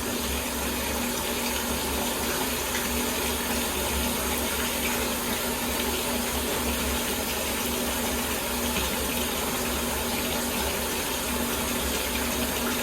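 Bathtub faucet running steadily, water pouring into a filling tub.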